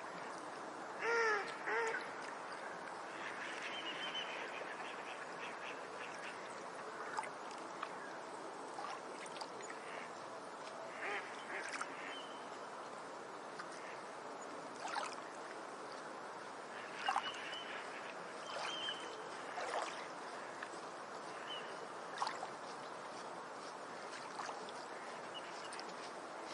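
Ducks quacking: two loud calls about a second in, then scattered softer quacks and short clicks over a steady background hiss.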